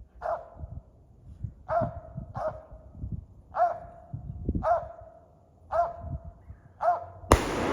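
Squirrel dog barking treed at the base of a tree, seven short barks about one a second, telling the hunters the squirrel is up that tree. Near the end a single loud shotgun blast goes off, fired at the treed squirrel.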